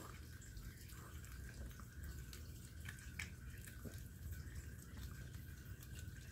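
Maltese dog licking and eating a soft, ripe persimmon from a hand: faint wet smacks and clicks scattered through, over a low steady hum.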